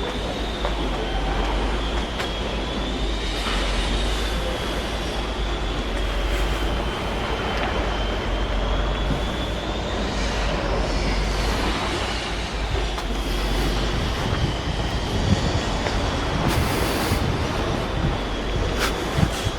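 Steady, heavy metallic rumbling with a continuous high-pitched squeal that wavers slightly in pitch, like steel rolling or sliding on steel under a heavy load. A few sharp clicks come near the end.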